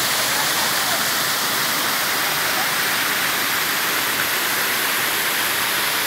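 Water of a small rocky cascade rushing and splashing over the rocks: a steady, unbroken rushing noise.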